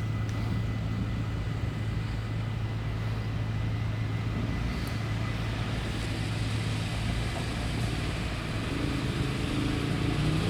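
SIG high-floor tram running, a steady low hum and rumble that grows a little louder near the end, when rising tones set in.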